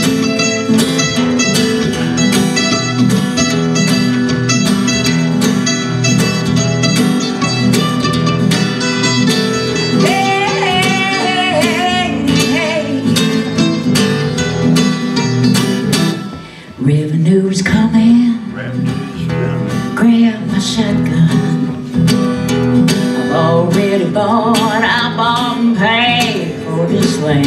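Instrumental break in a country song: an acoustic guitar strums steady chords while a second plucked string instrument plays a lead line over it. The music drops away for a moment about two-thirds of the way through, then picks up again.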